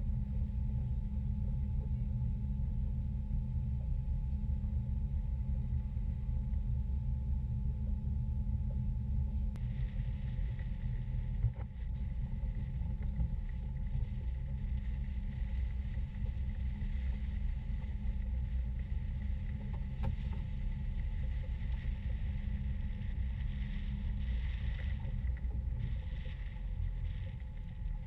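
Cabin cruiser underway, its engine running with a steady low rumble and a faint hum. A higher hiss joins about ten seconds in.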